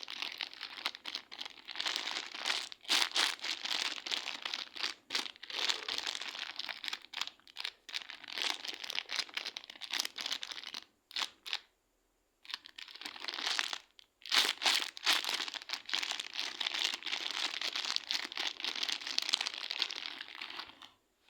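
Slime being squeezed and pressed by hand for ASMR: a dense crackling, crinkling sound, broken by two short pauses a little past halfway.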